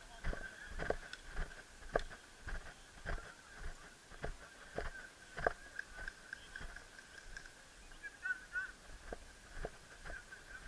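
Walking footsteps through dry grass and dirt, an even pace of about two steps a second, over a faint steady high-pitched tone.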